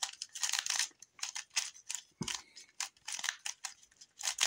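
GAN 356 Air Magnetic 3x3 speedcube turned by hand through a PLL algorithm: quick runs of light plastic clicks and clacks as the magnetic layers turn and settle, with one duller knock about halfway through.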